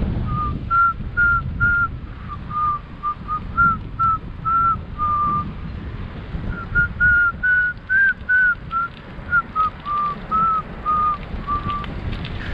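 A person whistling a Christmas song, a string of short notes with a brief pause midway, over a steady low rumble of wind and tyre noise.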